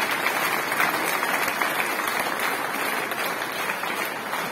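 Audience applauding: dense, steady clapping from many hands that begins to die down near the end.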